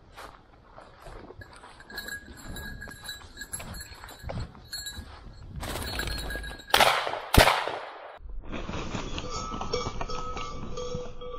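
A bird dog's collar bell tinkling as the dog works on point, then two shotgun shots less than a second apart, missing a flushed pair of ruffed grouse.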